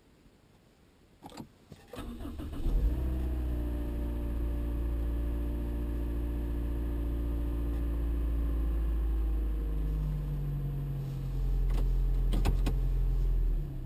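Toyota Noah (75 series) engine being started: a few clicks, a short crank, then the engine catches and runs at a steady idle, its sound changing about eleven seconds in and settling near the end. The start-up carries an abnormal noise that the owner reports.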